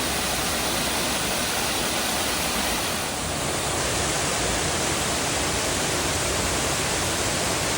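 Waterfall rushing steadily, its creek running high after days of rain.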